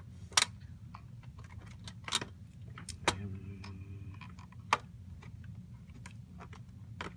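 Scattered plastic clicks and knocks from a black plastic shroud being worked into place inside a desktop computer case and pressed down, with a sharper click near the end as it locks in.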